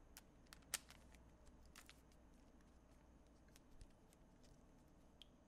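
Faint, scattered clicks of a Rubik's-style puzzle cube being twisted by hand, with one sharper click about three-quarters of a second in.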